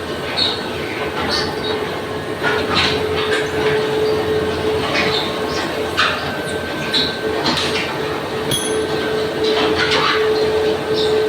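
Heavy industrial machinery running loudly, with a steady whine underneath and frequent short metallic squeals and clanks.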